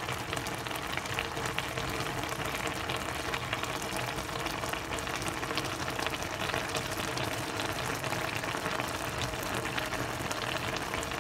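A pot of laing (taro leaves, pork and shrimp in coconut milk) bubbling at a steady boil, with a constant patter of small pops and a faint steady hum underneath.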